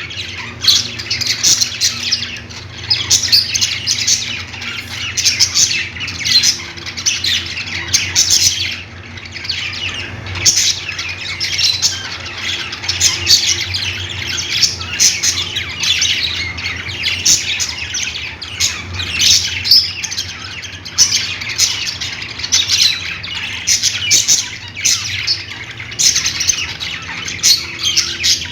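Budgerigars chattering: a continuous run of chirps and sharp squawks, over a steady low hum.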